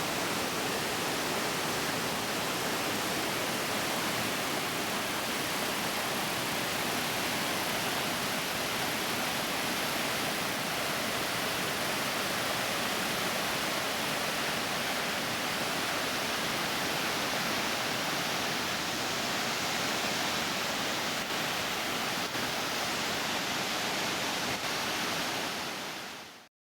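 Waterfall cascade tumbling down a mountainside: a steady, even rush of falling water. It fades out shortly before the end.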